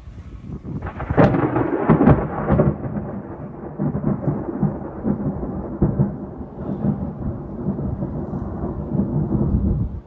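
Thunder: a sharp crack about a second in and a few more cracks over the next second and a half, then a long low rumble.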